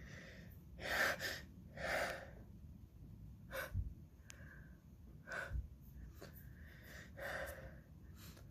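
A woman with a bad head cold gasping and breathing in short, noisy bursts during a sneezing fit. The loudest two come about a second apart near the start, and quieter sniffs and breaths follow.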